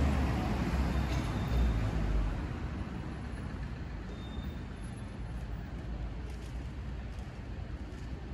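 City street traffic: a steady wash of passing cars, with a heavy low rumble over the first two seconds or so that then eases off.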